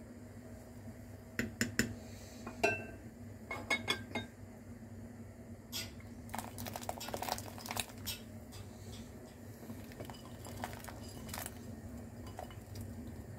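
Sharp kitchen clinks and knocks against a steel cooking pot, some briefly ringing, then a denser run of clattering about six seconds in as shelled broad beans are tipped off a metal plate into boiling water. A low steady hum lies underneath.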